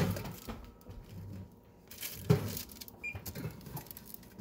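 Two sharp metallic knocks, one right at the start and one about two seconds in, with lighter clinks between: a metal baking tray being handled on an oven rack.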